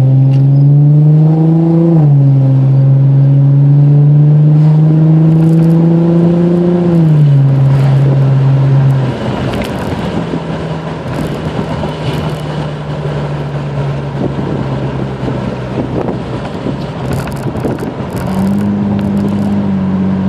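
Infiniti G35x's V6 engine accelerating: the revs climb, fall sharply at a gear change about two seconds in, climb again and ease off about seven seconds in. It then runs at a steadier, quieter note under road noise, picking up again near the end.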